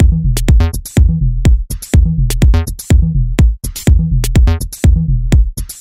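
Background electronic music with a steady drum-machine beat and a repeating bass line.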